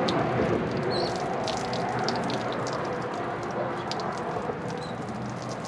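Water splashing and dripping onto wet concrete as hands are rinsed off, in short spatters over a steady outdoor hiss.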